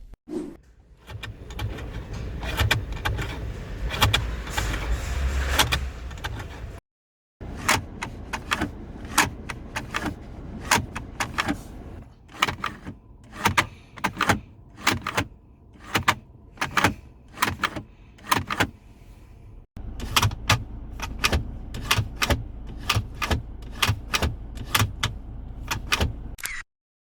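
Irregular ticking and knocking rattles from a car's interior, the sunroof and storage compartment noise of an early 2023-model car, over a steady low road rumble in the cabin while driving.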